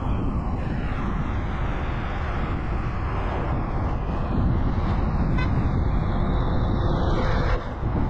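Steady rumbling road noise from a moving vehicle, engine and tyres on the road, with a brief dip in level near the end.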